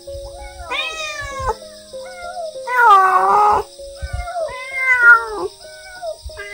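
A cat meowing repeatedly in long, drawn-out meows, about four of them, the loudest about three seconds in.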